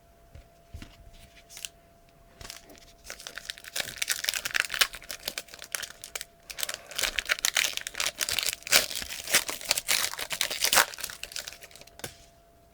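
Trading card pack wrappers being torn open and crinkled in hand: a few light clicks, then two long stretches of dense crackling with a short break between them.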